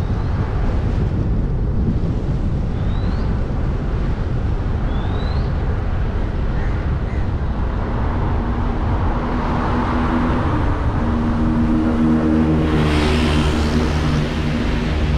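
Car driving on a road: steady road and wind noise throughout. Two short high chirps come early on, a steady engine drone comes in about two-thirds of the way through, and a short burst of hiss follows near the end.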